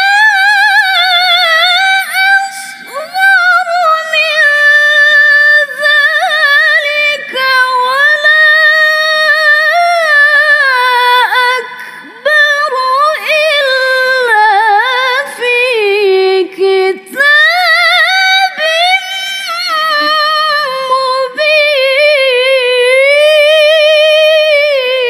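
A woman reciting the Quran in melodic tilawah style, unaccompanied. She holds long, highly ornamented phrases in a high register with a rapid wavering in the voice, breaks off only briefly for breath, and lets the pitch fall near the end.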